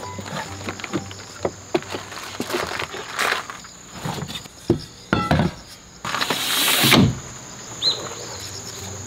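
Camping gear and bags being handled and shifted in the back of a camper van: scattered knocks and rustles, with a louder rush of noise about six seconds in that stops abruptly about a second later. A steady high insect drone runs underneath.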